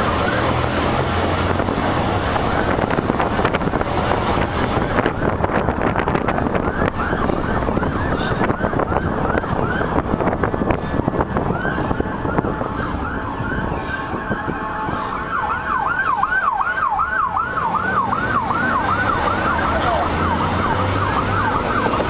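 Emergency siren sweeping up and down in pitch, switching to a quicker yelp of about three sweeps a second in the second half. It sounds over the rush of wind and road noise from riding in the open bed of a pickup driving at speed.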